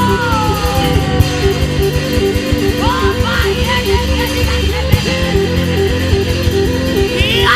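Worship band music: an instrumental passage with guitar over bass and a steady repeating beat, with a few sliding notes on top.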